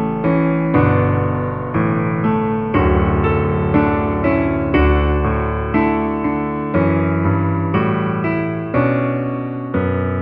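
Background music: piano chords struck about once a second, each note ringing and fading.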